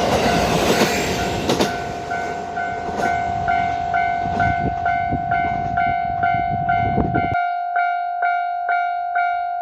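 KiHa 40 diesel railcar running over a level crossing, wheels clacking sharply on the rail joints a few times, its rumble fading, while the crossing's alarm bell rings steadily about twice a second. Near the end the train noise cuts off suddenly and only the crossing bell is left ringing.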